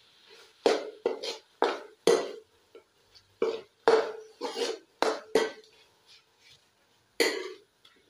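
A metal ladle scraping and knocking against a metal pan while stirring diced potatoes: about a dozen sharp strokes, each leaving a short ring from the pan. After a pause of over a second, one last stroke comes near the end.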